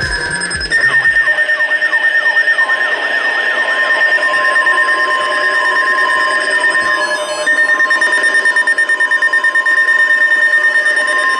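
NOAA Weather Radio alert tones sounding as an alarm for a severe thunderstorm watch. A steady high tone pulses several times a second, a second steady lower tone joins about three seconds in, and a wavering tone warbles underneath.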